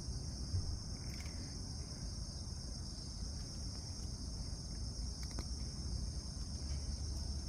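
Insects chirping in a steady high-pitched drone over a low background rumble, with a few faint clicks.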